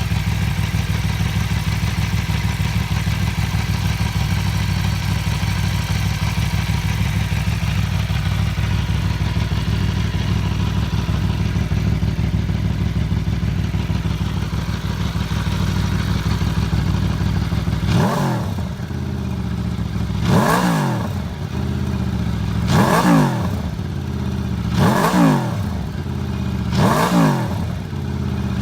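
Aprilia Tuono V4 1100 RR's V4 engine idling steadily, then revved in five short throttle blips about two and a half seconds apart in the last ten seconds, each rising and falling back to idle.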